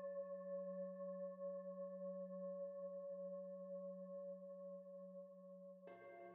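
Singing bowl ringing on faintly with a steady, slowly fading tone, then a second, deeper bowl struck near the end and ringing.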